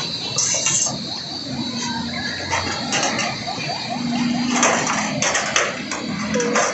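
Metal clattering and scraping as an aluminium-framed solar panel is shifted and seated on its mounting rail over a corrugated metal roof, with a cluster of sharp knocks about four and a half to five and a half seconds in.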